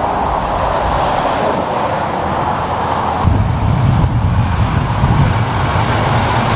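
Road traffic passing: steady tyre and road noise, then about three seconds in a heavy truck's low engine rumble takes over as it goes by.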